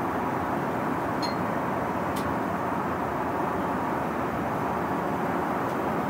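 Steady cabin noise of an Airbus A380 airliner in cruise flight: the even rush of engines and airflow heard inside the cabin. Two brief clicks come about one and two seconds in.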